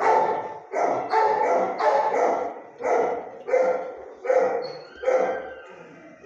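A dog barking repeatedly, about one bark every half second to a second.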